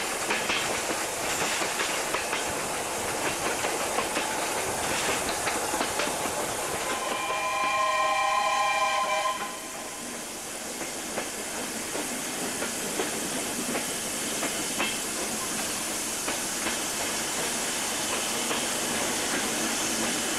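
A steam-hauled train running, heard from a carriage window: a steady rush of wheels on the track, steam and wind. About seven seconds in, the steam locomotive's whistle blows one long note lasting about two and a half seconds.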